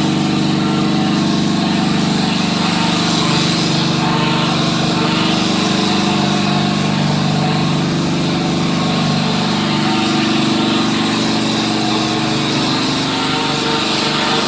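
Plaster spraying machine running steadily while applying Knauf MP75 L lightweight gypsum machine plaster: a constant motor hum with an even hiss over it.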